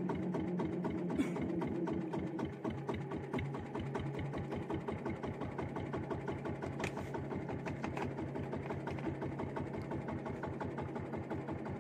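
Small boat engine running at a low, steady speed: a rapid, even pulsing with a steady hum under it.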